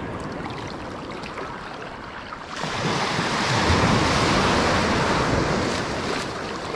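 Small shore waves washing in over shallow water and sand, a wave surging in and getting louder about two and a half seconds in before easing off.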